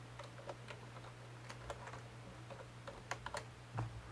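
Computer keyboard keystrokes: faint, scattered clicks at an irregular pace, over a steady low hum.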